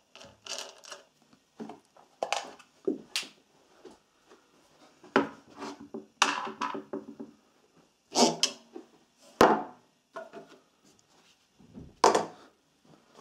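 Air-filter cover and filter element of a Honda GX160 engine being taken off by hand and set on the bench: irregular clicks, knocks and rubbing of plastic and metal parts, with one sharp click about nine seconds in.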